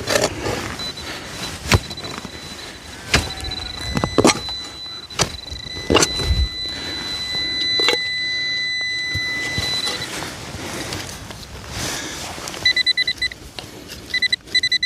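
Metal detector sounding a steady, high electronic tone for several seconds, then a rapid pulsing beep near the end, signalling a metal target in the hole. Sharp knocks and scrapes of digging in soil sound throughout.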